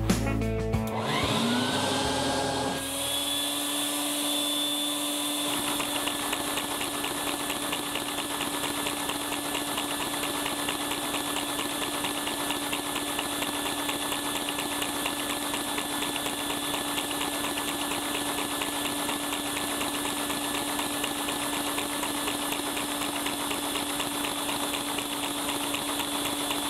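A vacuum motor spins up with a rising whine that settles into a steady tone within the first few seconds, then a LEGO flat-twin vacuum engine runs with a fast, even clatter of plastic pistons, pushrods and crankshaft under the constant whine of the suction.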